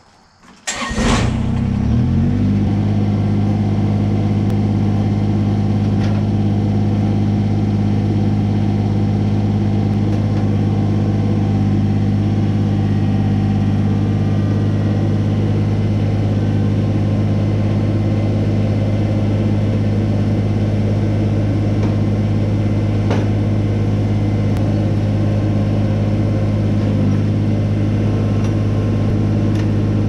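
Kubota BX23S compact tractor's three-cylinder diesel engine started: the starter cranks briefly, the engine catches about a second in and settles into a steady idle.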